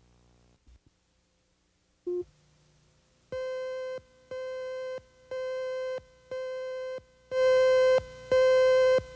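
Countdown leader tone on a news videotape: a steady mid-pitched beep, repeated once a second with each beep lasting most of the second, timed to the slate's count. It starts a little past the third second, after a short blip, and gets much louder for the last few beeps.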